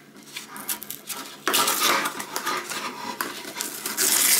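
Hands handling a stainless steel mechanical kitchen scale: light metal clinks and knocks, then a denser noisy rubbing and scraping from about one and a half seconds in, loudest near the end.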